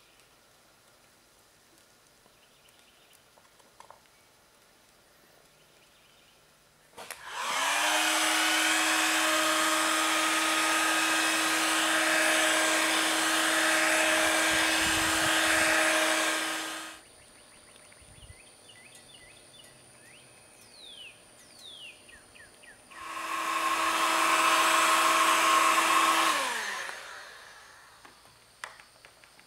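Electric heat gun blowing hot air onto the molten pine-rosin pitch in a strainer. It is switched on about seven seconds in, the fan spinning up to a steady hum with a rush of air, runs about ten seconds, then is switched off and winds down. A second, shorter run follows, again rising and then falling away as it is switched off.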